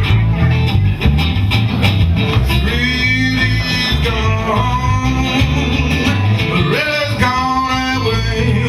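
Live blues band playing a slow blues: bass and drums keep a steady beat while a lead line plays held notes that bend and waver.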